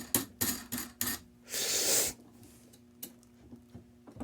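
Workshop handling sounds: several sharp clicks and knocks of parts being handled, then a hiss lasting about half a second, then only a few faint ticks.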